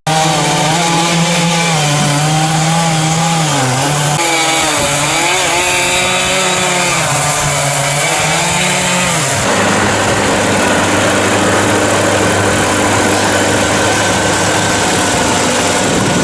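Gas chainsaw running and cutting wood, its engine pitch dipping and rising under load. About nine seconds in it gives way to a steady, lower engine note.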